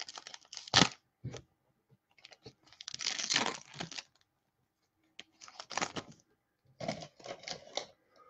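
Trading-card pack wrappers being torn open and crinkled, in several short bursts of tearing and rustling.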